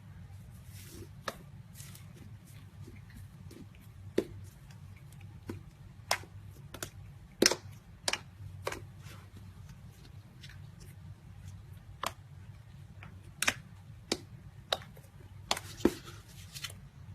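Slime being handled and squeezed, giving sharp irregular clicks and pops with a few brief crackling rustles, over a steady low hum.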